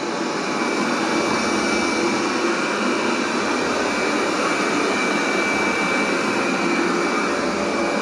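360 S7 robot vacuum cleaner running in Max suction mode, its loudest setting: a steady rush of fan and suction noise with a thin high whine. The level builds slightly in the first second.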